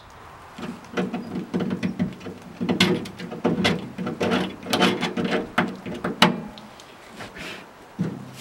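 A knife blade scraping and cutting away excess body filler on a sheet-metal truck door, in a quick, irregular run of scraping strokes that stops about six seconds in, with a few fainter strokes after.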